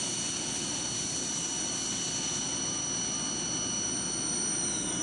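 Steady machine-shop din of running CNC machinery, with several thin high-pitched whines held steady over it; one whine fades out near the end.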